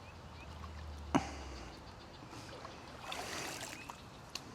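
Water lapping and trickling at the bank, with a sharp click about a second in and another near the end.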